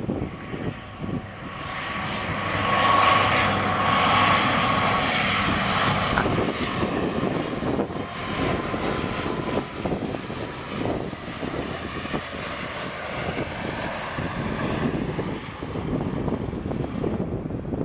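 Bombardier Dash 8 Q400 turboprop on approach, its Pratt & Whitney PW150A engines and propellers giving a steady drone with a high whine. The sound swells to its loudest a few seconds in, then eases off slowly as the whine drops a little in pitch.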